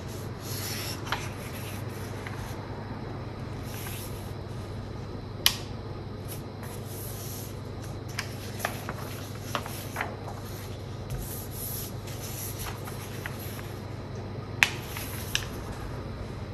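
A sheet of paper being folded by hand on a tabletop: rustling and sliding, with sharp crackles as the creases are pressed, the loudest about five and a half seconds in and near the end. A steady low hum runs underneath.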